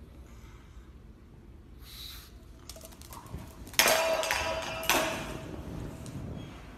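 A stainless steel dog bowl dropped by a pug onto a wooden floor: a sudden metallic clang about four seconds in and a second about a second later, each ringing and slowly fading.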